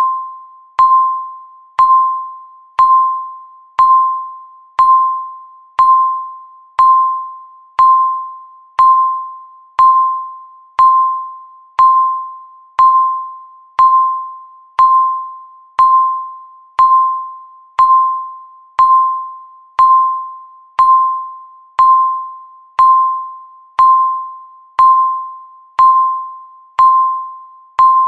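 Countdown timer beeps: a short electronic tone, one pitch, sounding once a second, each starting sharply and fading away before the next.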